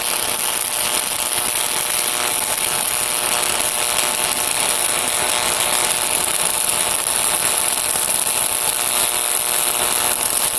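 Stick (SMAW) welding arc burning on alternating current at about 115 amps: a steady crackling hiss with a light AC buzz, a soft, smooth arc throwing only small sparkles of spatter.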